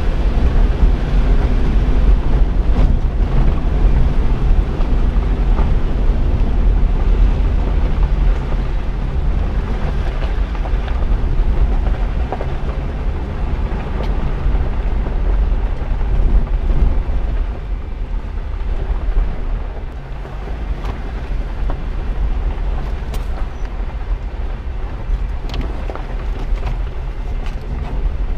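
A Jeep driving on a dirt and gravel road, heard from a camera on its hood: a steady low rumble of engine, tyres and wind on the microphone, with scattered light clicks.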